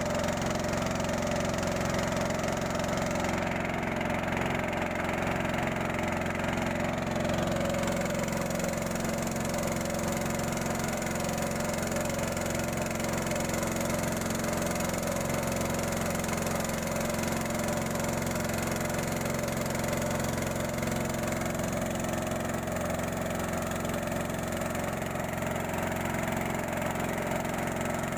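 Small air-cooled single-cylinder petrol engine of a wooden 'robin' river boat running at a steady cruising speed while the boat is underway.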